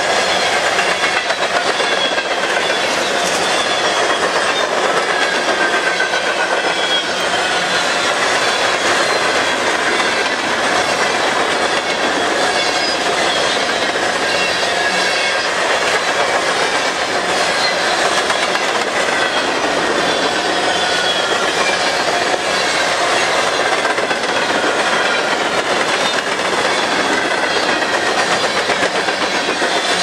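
Empty covered hopper cars of a freight train rolling past close by: a steady, loud rumble of steel wheels on rail with repeated clicking over the rail joints. Thin high squeals from the wheels slide up and down in pitch throughout.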